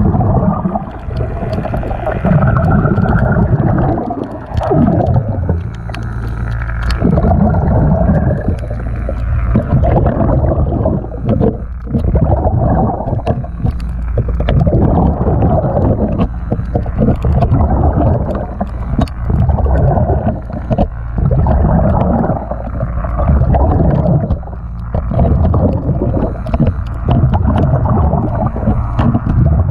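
Underwater recording of a diver's exhaled bubbles gurgling in repeated cycles every few seconds. Faint scraping ticks come from a metal scraper working algae off a boat hull around a thru-hull cover.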